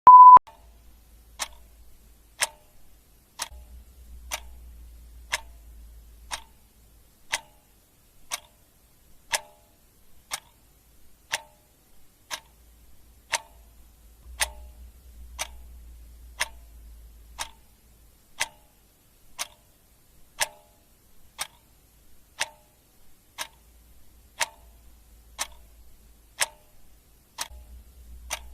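Clock ticking, one even tick per second, after a short loud single-pitched beep at the very start.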